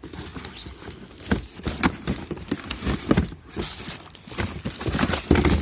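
Packaging crinkling and rustling with irregular knocks and clicks as the plastic parts of an electric pressure washer are handled and taken out of the box, with a louder thump near the end.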